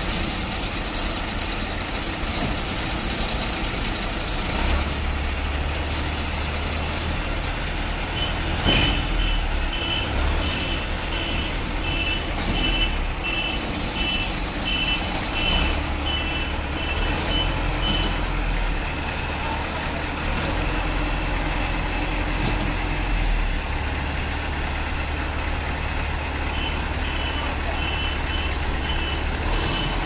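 Diesel engines of heavy construction machines running steadily, with a reversing alarm beeping about twice a second for a stretch of ten seconds and again near the end. A single clunk comes about nine seconds in.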